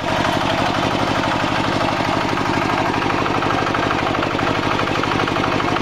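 Walking tractor's single-cylinder diesel engine running steadily with a rapid, even firing beat as it pulls a plough through the soil.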